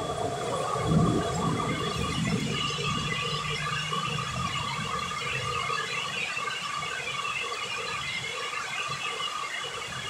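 Steady rain during a storm, with a faint steady high whistle over it. A low rumble starts about a second in and fades over the next couple of seconds.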